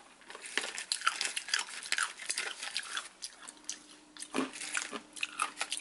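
Wasabi-flavoured almonds being crunched and chewed, with a small foil snack pouch crinkling in the hand: a steady run of short, crisp crackles and crunches.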